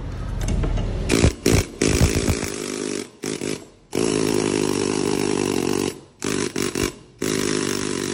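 Compressed-air needle scaler run in bursts on the trigger: three quick blips about a second in, then longer runs of fast rattling hammering, broken by short pauses.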